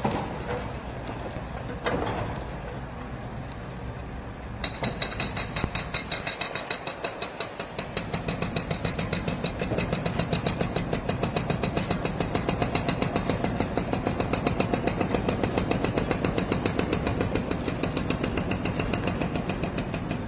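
Heavy equipment engine running. A few seconds in it takes on a fast, even pulsing of about five beats a second that grows louder and holds steady.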